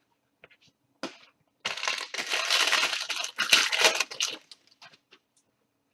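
A trading card pack's wrapper crinkling as it is handled and opened. The dense crackle lasts about three seconds, starting a little under two seconds in.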